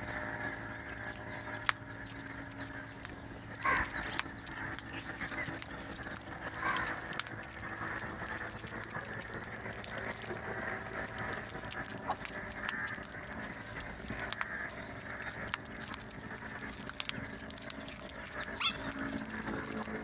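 House crows and common mynas calling and chattering over one another while feeding, with a few short louder calls standing out and some sharp clicks.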